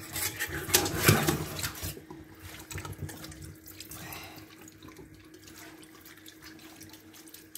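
Water running from a kitchen tap into a stainless steel sink as a whole fish is rinsed and rubbed by hand. There is splashing and handling noise for about the first two seconds, then a quieter steady running-water hiss.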